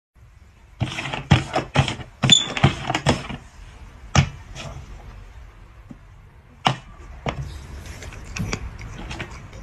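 Upturned cups knocking and clacking on a board: a quick run of taps and clacks, then single knocks as a dog paws at a cup and noses the cups aside.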